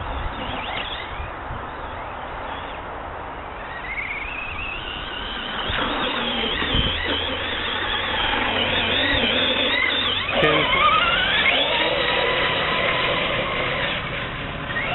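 Traxxas Slash RC truck's motor and drivetrain whining, a high-pitched whine that rises and falls with the throttle. It gets louder about halfway through and sweeps sharply up in pitch about ten seconds in.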